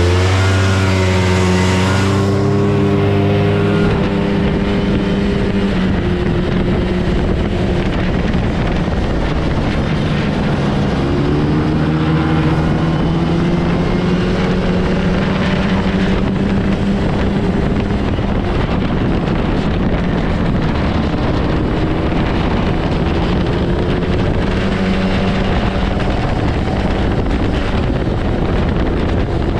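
Yamaha Bravo snowmobile's single-cylinder two-stroke engine running under way. Its pitch drops in the first couple of seconds as the throttle eases, climbs again about eleven seconds in, and swells once more late on, over a steady rush of track and wind noise.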